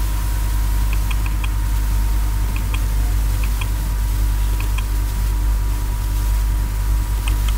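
Steady low hum and hiss from the recording setup, with a faint steady high tone, and a computer mouse clicking about six times, each click a quick press-and-release double tick.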